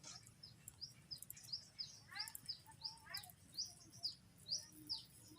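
Small bird chirping: short high notes, each sliding down, about three a second. About two and three seconds in, there are quick runs of lower falling notes.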